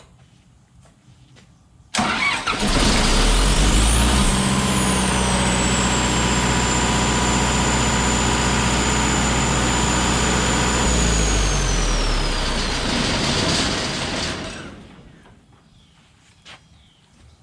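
John Deere 4045 turbocharged four-cylinder diesel engine of a standby generator starting up: it comes in suddenly about two seconds in and runs loud and steady with a high whine for about twelve seconds. Near the end the whine falls away and the engine winds down and stops.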